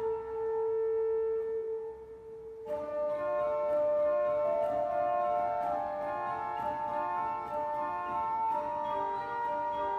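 Serassi pipe organ (1789/1837) playing a slow piece: a single held note fades away, then about two and a half seconds in a full chord of sustained notes comes in at once and the music moves on.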